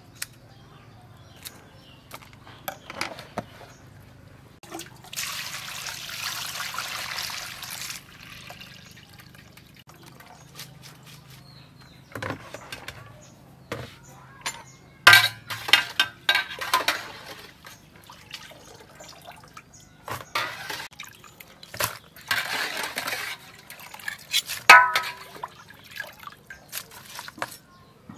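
Water pouring and splashing while raw shrimp are washed in plastic colanders, with short knocks and clatters of the shrimp and baskets being handled. Two longer pours come about five seconds in and again later on.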